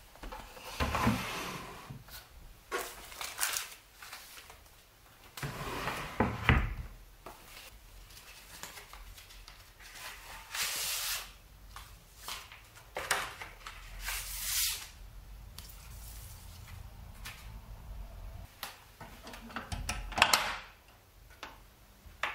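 A dresser drawer sliding on its runners, then a run of sliding and rustling handling sounds as a vinyl LP is drawn out of its record sleeve, with the loudest swish near the end.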